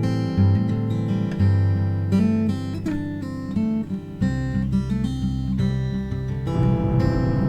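Background music: strummed acoustic guitar with plucked notes.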